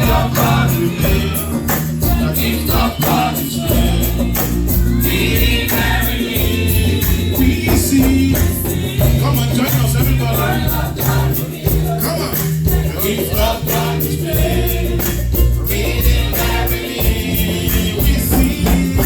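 Live gospel music: a choir singing over a deep bass line and a steady beat, with a tambourine shaking.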